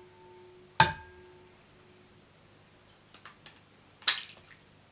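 An egg is knocked once against the rim of a glass mixing bowl: a sharp tap, and the bowl rings briefly. About three seconds later come a few small clicks, then a crisp crackle as the shell is cracked and pulled apart over the bowl.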